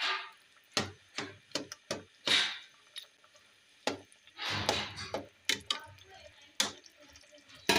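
Slotted spoon stirring chopped bottle gourd in oil in a metal pot: irregular clinks and knocks against the pot, with a few longer scrapes, the longest about two and a half seconds in and again around four and a half to five seconds in.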